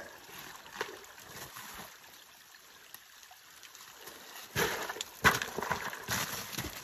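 Meltwater trickling down a small channel in glacier ice. From about four and a half seconds in, a run of crunching footsteps and sharp strikes of trekking poles on ice and gravel.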